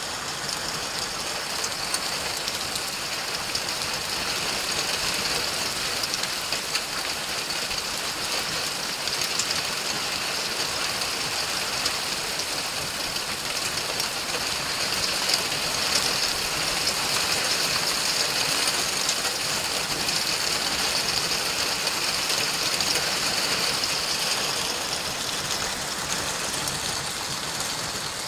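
Heavy thunderstorm rain pouring onto a flooded street: a steady hiss with many scattered sharp ticks of impacts, swelling a little past the middle and easing near the end.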